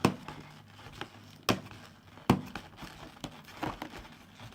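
Toy box packaging being handled and opened: a few sharp knocks and clicks, the loudest just past two seconds in, with faint rustling between.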